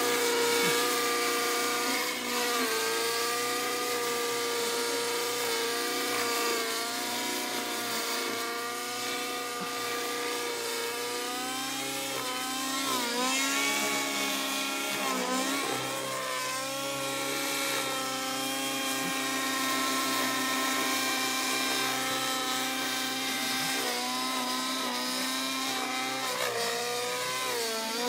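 Align T-Rex 700 RC helicopter with 710 mm rotor blades flying: a steady mechanical whine from its rotor and drive, its pitch dipping and recovering a few times in the middle and again near the end as the head speed changes.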